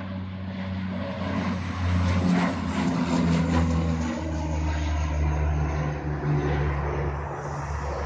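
Propeller engines of a low-flying amphibious water-bomber (scooper) plane passing overhead. The steady drone is loudest a couple of seconds in, then drops slightly in pitch as the plane moves away.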